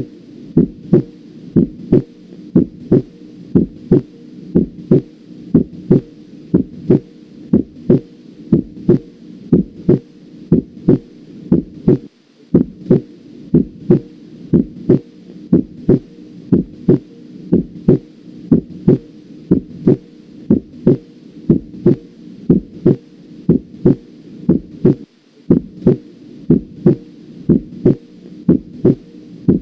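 Normal heart sounds heard on auscultation: a steady lub-dub about once a second, each beat a pair of short thuds. The second sound of each pair, the slightly higher, shorter "lop", is the closing of the aortic and pulmonary valves and marks the start of ventricular diastole.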